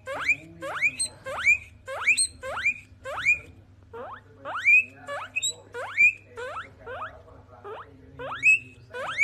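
Guinea pig wheeking: a run of short, steeply rising squeals, about two a second.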